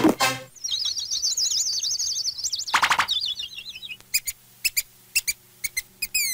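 Cartoon baby bird chirping: after the music cuts off, a fast high warbling twitter, with a loud falling whistle about three seconds in, then a string of short, sharp peeps.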